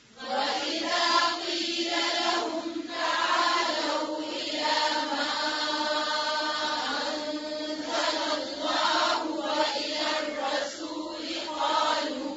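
A group of voices chanting Quranic recitation in unison, in drawn-out phrases with short breaks.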